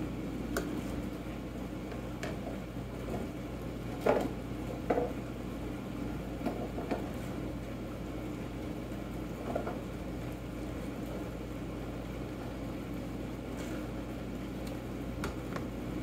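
Steady low electrical hum of a small kitchen, with a few scattered light knocks and clicks, the loudest about four and five seconds in, from a plastic container being handled on a glass-top kitchen scale.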